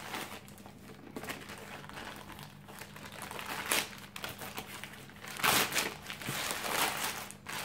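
Plastic mailer bag being torn open and crinkled by hand, with a louder rip about five and a half seconds in.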